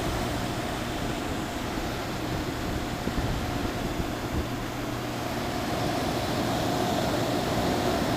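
Electric motor of a grinder running steadily with a 3D-printed replacement cooling fan blade fitted: a constant hum with a steady whine over a rushing noise.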